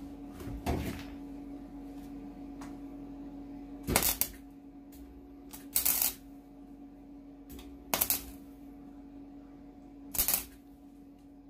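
Wire-feed welder striking short tack welds on a thin steel lawn mower deck, five brief bursts about two seconds apart, over a steady hum. It is set to its lowest setting to stitch shut a spot where the arc burned through the metal.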